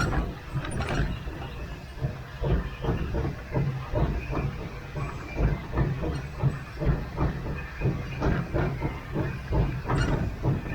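Vulcan 0-4-0T narrow-gauge steam locomotive under way, its exhaust chuffing in a steady rhythm of about three beats a second over a continuous low rumble and steam hiss.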